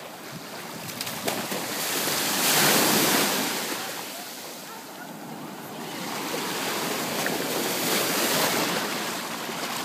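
Ocean surf breaking and washing up the beach, a steady rush of water that swells twice, each wash rising and fading over a few seconds.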